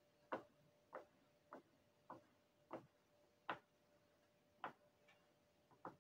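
Short scraping strokes of a small hand-held metal scraper across a carved wax printing block, about eight at irregular intervals, over a faint steady hum.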